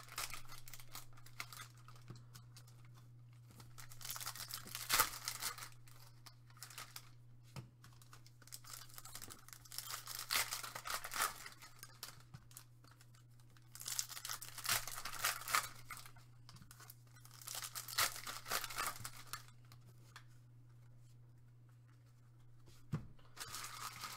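Foil trading-card pack wrappers being torn open and crinkled, in several bursts of a second or two, over a steady low hum.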